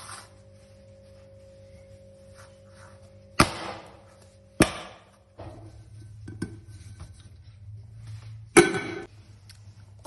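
An aluminium cake pan is banged on a stone countertop three times as the baked sponge cake is turned out of it. Each bang is sharp and metallic with a short ring: the first about three and a half seconds in, the second a second later, and the loudest near the end.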